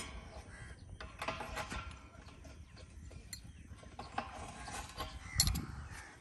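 Scattered metallic clicks and clinks of a wrench and hands working the bolts on a water pump's pipe flange, with one louder knock about five seconds in.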